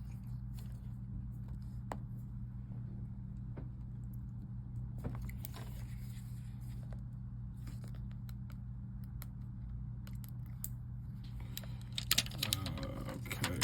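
Light clicks and taps of a smartphone's new LCD panel being handled and pressed into its frame by hand, over a steady low hum, with a denser burst of clicking and rustling near the end.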